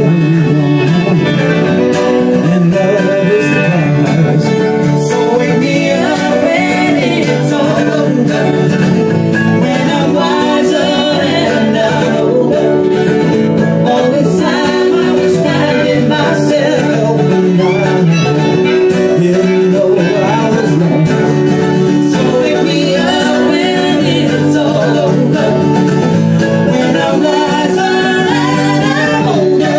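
Small live acoustic band playing a song: strummed acoustic guitar with a man singing lead.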